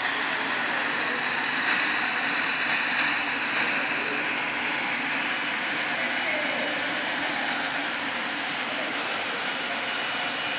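Kärcher BD 530 Bat battery-powered scrubber-dryer running steadily as it scrubs the floor: an even motor whir with a high watery hiss.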